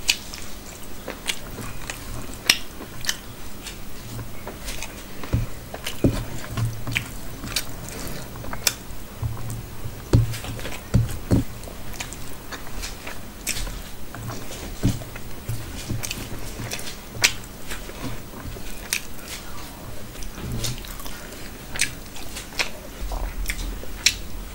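Close-miked chewing of rice eaten by hand, with frequent sharp, wet mouth clicks and smacks and soft low thuds throughout.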